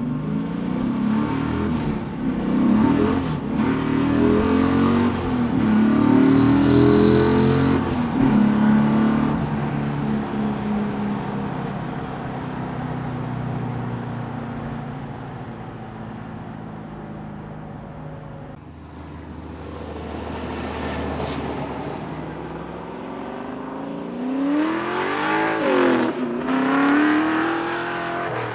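Stroked 7.0-litre LS3 V8 with a 6-speed manual accelerating hard, its pitch climbing and dropping back at several gear changes, then holding a steady cruise. Near the end the car accelerates past, the engine note rising, dipping at a shift and rising again.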